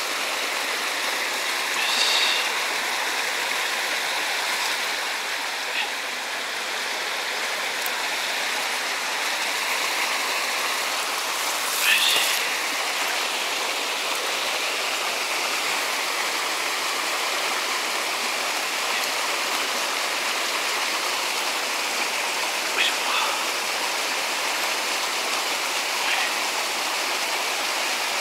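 Steady rush of flowing water, as from a stream or weir. A few short high-pitched calls sound over it, most clearly about two and twelve seconds in.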